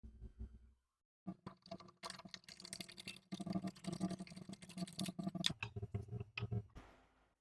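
Rapid, irregular light tapping and clicking of hard objects, a few taps at first, then a dense run from about a second in that thins out near the end.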